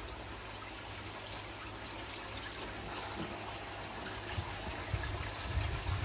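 Steady trickle of running pond water, with a low steady hum underneath.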